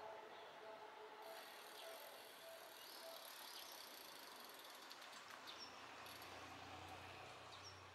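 Near silence: faint outdoor ambience with a thin high insect-like hiss, and a faint tone repeating about twice a second that stops about three seconds in.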